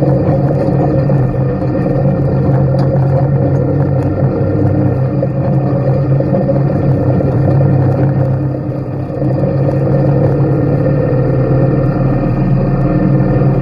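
Race vehicle's engine running hard at steady revs, heard from inside the cockpit while driving on dirt, easing off briefly about nine seconds in before pulling again.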